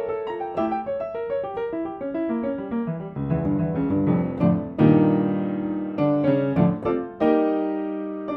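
Upright piano played solo in classical style: a stream of quick notes, then fuller low notes building to a loud chord about five seconds in, followed by several more struck chords.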